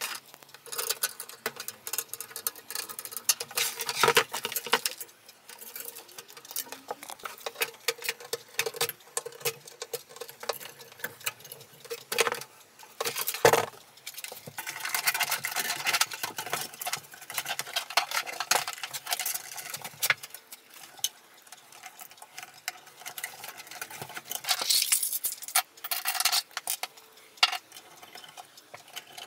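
Screwdriver and small screws working on a steel computer case: scattered clicks, scrapes and rattles, with a couple of sharper knocks about halfway through.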